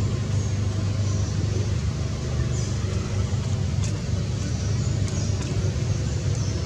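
Steady low engine hum, with faint short high chirps now and then.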